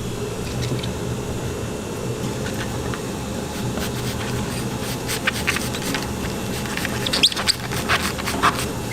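Kitchen utensils clicking and scraping against cookware over a steady low hum, in a quick irregular run of sharp, partly squeaky strokes that thickens in the second half.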